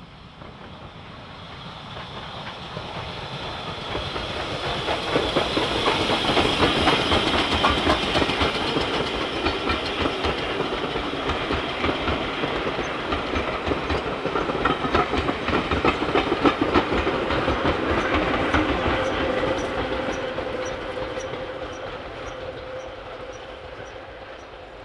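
Steam locomotive hauling a train of coaches passing by, its exhaust beats and wheels clattering over the rail joints. It grows louder as it approaches and fades as it draws away, with a steady tone joining in during the second half.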